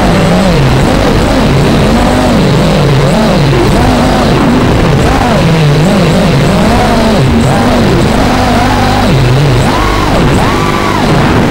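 Racing quadcopter's DYS SE2205 2300KV brushless motors and three-blade 5045 propellers whining, their pitch swooping up and down every second or so as the throttle is worked through the gates.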